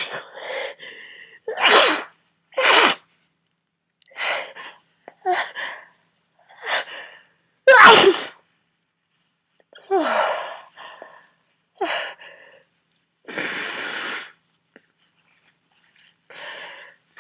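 A man with a heavy head cold sneezes over and over in an uncontrollable fit, one sneeze every second or two, with sharp breaths between them. The loudest sneeze comes about eight seconds in, and a longer, steadier blast comes around fourteen seconds.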